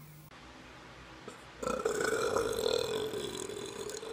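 A person burping: one long drawn-out belch that starts about one and a half seconds in and slowly tapers off.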